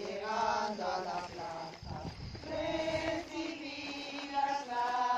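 A group of women singing a hymn to the Virgin together, holding long notes that step from one pitch to the next.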